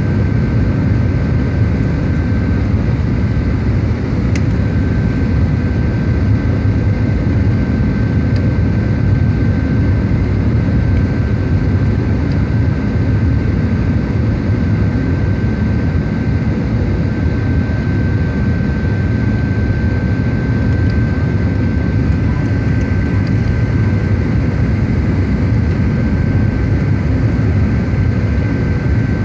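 Steady rush of engine and airflow noise inside the cabin of a Boeing 737-700 on final approach with flaps extended, its CFM56-7B engines running at approach power, with a steady high whine over the low rumble.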